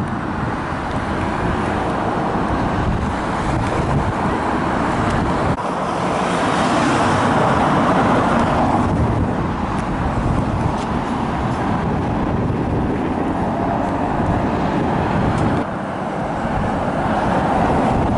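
Street traffic: cars driving past, a steady rush of engine and tyre noise that swells about six seconds in and eases off again a few seconds later.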